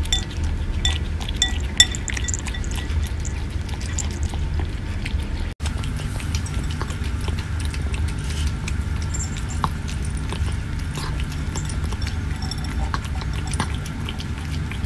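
A cat eating close to the microphone from a ceramic bowl: at first crunching dry kibble with small clinks against the bowl, then, after a cut about five and a half seconds in, wet smacking and licking of soft homemade food.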